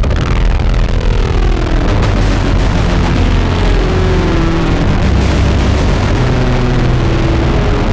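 Industrial drone music: a loud, dense wall of distorted noise over a heavy low rumble, with several pitches gliding downward in the first two seconds.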